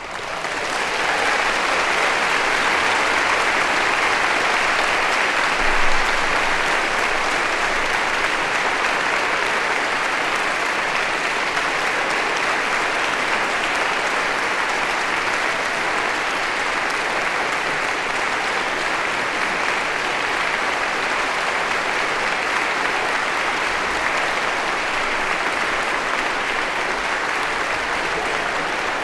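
Audience applauding: a dense, steady round of clapping that swells up in the first second and holds, with one brief louder clap or shout about six seconds in.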